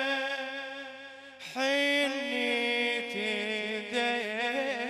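A radood's solo male voice chanting a Shia lament in Arabic, drawing out long, ornamented notes. A held note fades about a second in, and a new phrase starts loudly around a second and a half in.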